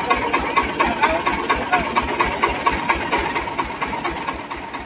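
Tractor engine running at a steady idle, with a rapid even low beat and a regular light tick over it. It eases off slightly near the end.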